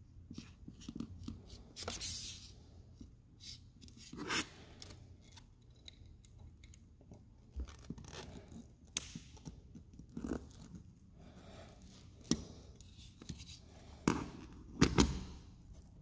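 Hand crimping tool closing a butt connector onto heavy-gauge wire: scattered metallic clicks and scrapes of the tool and connector being handled, the sharpest few near the end.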